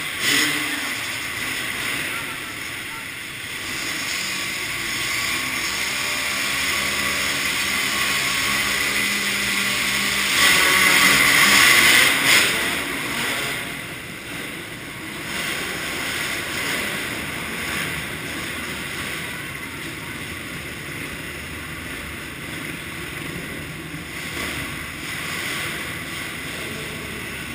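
Several motocross bikes' engines running together in a reverberant indoor dirt-track hall, with a louder stretch of engine noise about ten to twelve seconds in.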